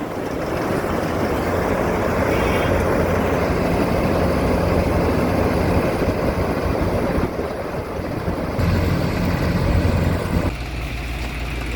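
John Deere rice combine harvester running, a loud steady engine and machinery noise with a deep hum. The sound shifts abruptly a few times, most clearly about ten and a half seconds in.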